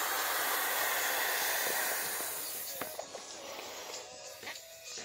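Air hissing steadily into an inflatable plastic figure as it is blown up, fading out about two and a half seconds in, followed by a few faint plastic rustles and clicks.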